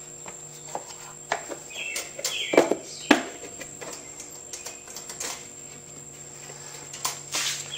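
Irregular clicks and knocks of a Lawn-Boy mower's plastic air filter housing and cover being fitted back over the paper filter, with birds chirping faintly.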